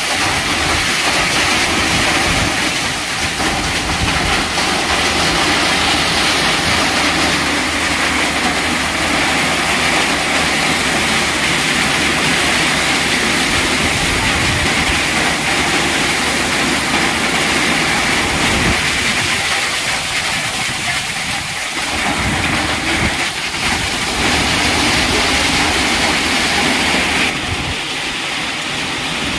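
Hailstorm: heavy rain and hail pelting down and water pouring and splashing, a loud, steady rushing hiss that dulls slightly near the end.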